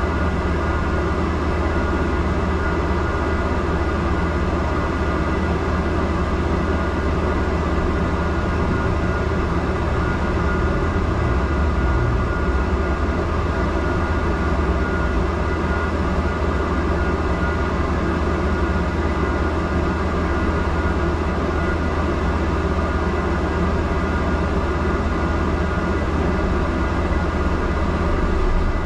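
Double-decker bus standing at idle, heard from inside the upper deck: a steady low hum with a few faint steady tones above it.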